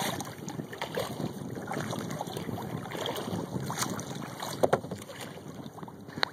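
Lake water splashing and lapping around a kayak, with scattered small irregular splashes and two sharper ones near the end, and some wind on the microphone.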